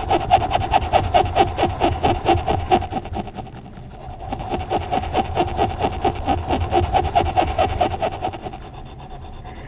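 Coloured pencil scribbling on paper in quick back-and-forth shading strokes, about five or six a second. There are two runs of strokes with a short pause between them a little after three seconds.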